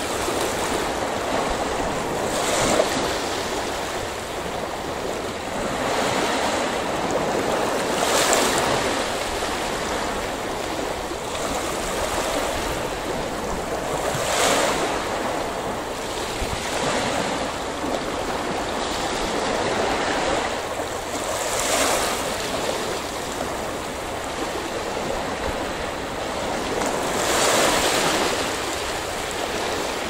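Sea waves washing against a breakwater, a steady surf hiss that swells about every six seconds.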